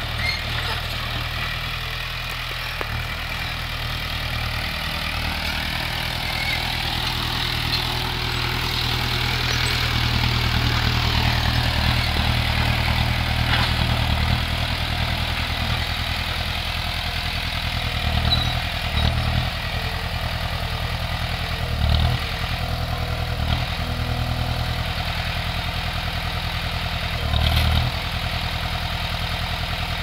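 Komatsu D20P small crawler dozer's diesel engine running steadily, growing louder for several seconds in the middle. A few short knocks and clanks come in the second half.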